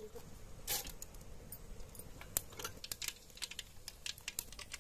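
Firewood fire crackling under a steel kadai: irregular sharp pops, a few a second, with a couple of louder cracks.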